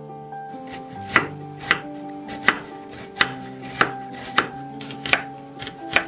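Chef's knife slicing an onion on a wooden cutting board: about eight crisp cuts at a slow, even pace, each blade strike knocking on the board, starting about a second in.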